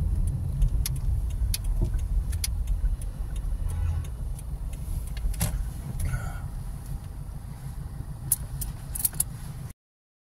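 Car interior noise as the car drives slowly and pulls up to a stop: a low engine and road rumble that gets quieter as the car slows, with scattered sharp clicks and knocks. The sound cuts off suddenly near the end.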